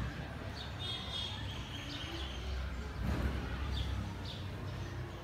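Birds chirping now and then over a low steady rumble.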